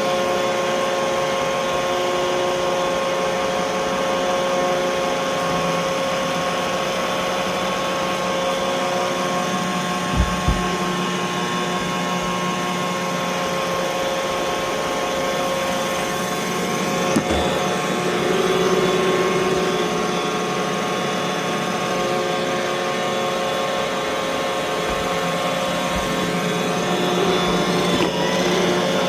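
Roomba robot vacuum running, a steady motor whine over brush and suction noise. Two quick knocks come about ten seconds in and another about seven seconds later.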